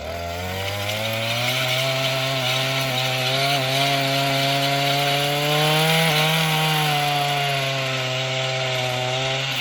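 Earthquake MC33's 33cc two-stroke engine revving up under throttle, then running at high speed for several seconds with a slight rise and dip in pitch around the middle. It drops back near the end.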